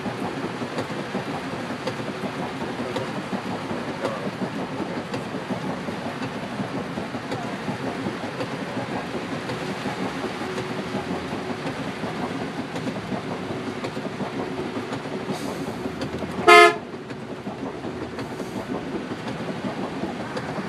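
Steady rushing noise of cars driving through a flooded street in heavy rain. About three-quarters of the way through, a car horn gives one short, loud honk.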